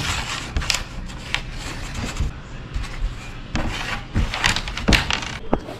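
Plastic button-football discs being pushed and flicked across a wooden game board, giving a series of irregular sharp clicks and knocks over a steady background hiss.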